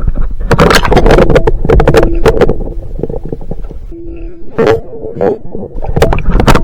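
A small crappie flopping and thrashing while being unhooked for release: rapid sharp slaps and knocks in two flurries, the second near the end, with a steady low hum under the middle.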